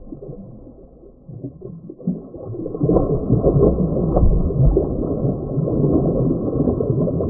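Muffled sloshing and rumbling of lake water, as heard with the camera's microphone dipped under the surface. It swells louder about three seconds in.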